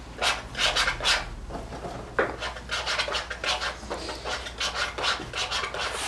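Steel palette knife scraping and mixing oil paint on a palette, a quick series of short scrapes, a few a second.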